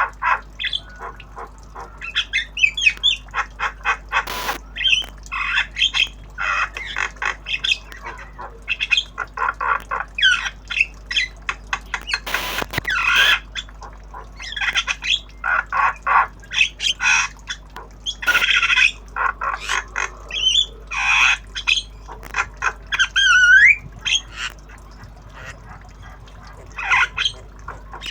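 Javan myna chattering in rapid harsh squawks and clicks, broken by short whistled notes, one of them a rising whistle near the end: a young tame bird practising its sounds.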